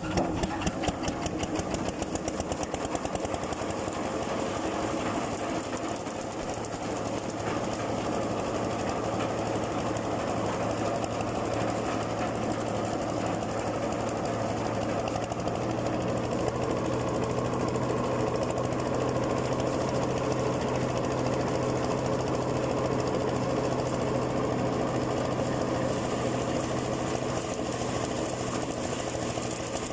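Engine-driven rice thresher running steadily, its engine giving a continuous hum. Over the first few seconds there is a fast, uneven rattle before the sound settles into an even run.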